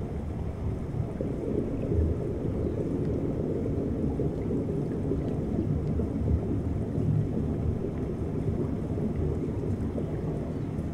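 Steady low rumble of ocean water and surge picked up underwater by the camera's microphone, with a few faint scattered ticks above it.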